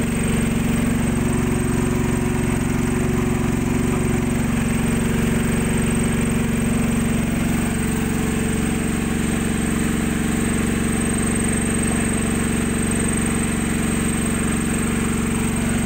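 SH15000EX 9 kVA silent petrol generator running steadily at an even speed while it powers a load of household appliances.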